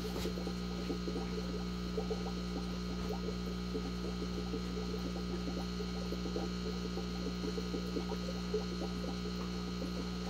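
Steady electrical hum of an aquarium air pump running the sponge filters, with a faint, irregular bubbling and ticking over it.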